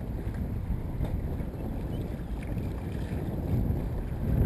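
Wind buffeting the microphone of a kayak-mounted camera: a steady, fluttering low rumble.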